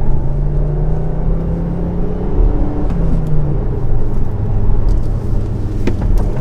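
Škoda Kodiaq RS engine and road noise heard from inside the cabin while driving: a steady low drone whose engine note shifts about three seconds in. A single sharp click comes near the end.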